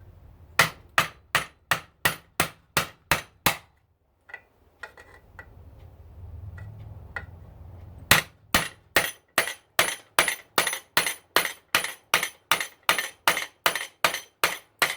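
Hammer blows on a metal part of a garbage disposal to knock it loose: a run of about seven even strikes, a pause with a few lighter knocks, then a longer run of about seventeen strikes at roughly two and a half a second, each with a short metallic ring.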